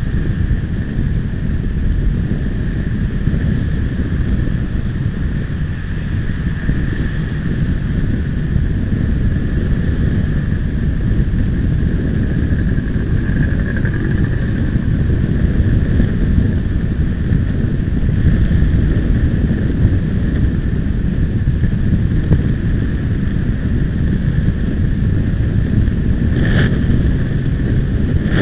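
Wind buffeting the microphone of a camera on a moving bicycle, heard as a steady low rumble with vehicle noise underneath. There is a single brief knock near the end.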